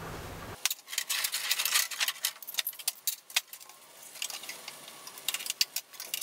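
Lengths of bent thin metal tubing clinking, rattling and scraping against each other and the floor as they are handled: an irregular run of light metallic clicks and scrapes. A low steady hum cuts off about half a second in.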